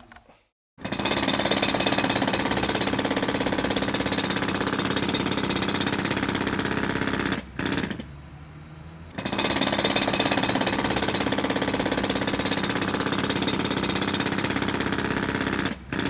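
Sky 65 mm electric jackhammer hammering on concrete in two long runs of about six and a half seconds each, with a short pause between them.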